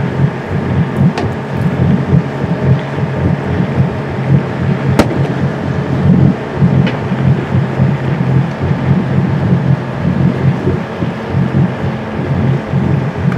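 Wind buffeting the microphone on a sailing schooner's deck: a loud, uneven low rumble over a steady low hum, with one sharp click about five seconds in.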